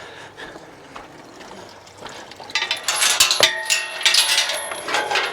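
Metal clanking and rattling that starts about two and a half seconds in, dense knocks with a ringing metallic tone over them, like steel farm gates or a feeder being knocked about.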